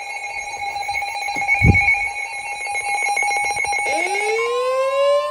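Emergency Alert System two-tone attention signal blaring steadily from a TV and cutting off about four seconds in, with a low thump just before the two-second mark. A rising siren wail then starts, and a steady single-pitch weather-radio alert tone joins it half a second later, signalling the next warning.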